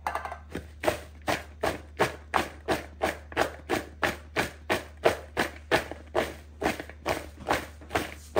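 Sliced okra tossed by hand in a plastic mixing bowl to coat it in spices, each toss a short shuffling knock, about three a second in a steady rhythm.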